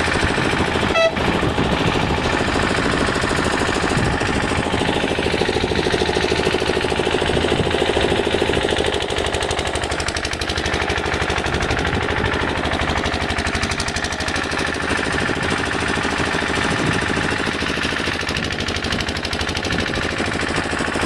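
An engine-driven machine running steadily with a rapid, even rattle, and a single sharp click about a second in.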